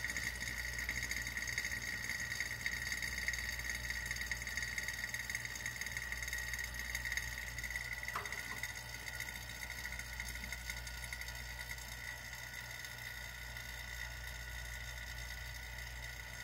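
Vacuum pump running steadily as it pulls a vacuum on the chamber, a constant mechanical hum that eases slightly quieter towards the end. A single faint click about halfway through.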